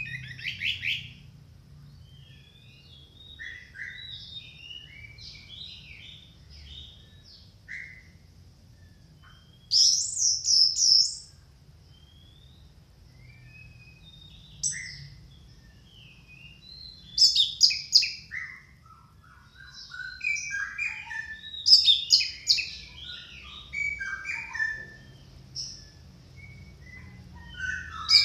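Orange-headed thrush (anis merah) singing a loud, varied song of short, scattered phrases that includes mimicked notes of other birds, with rapid, louder clusters about a third of the way in and again through the second half.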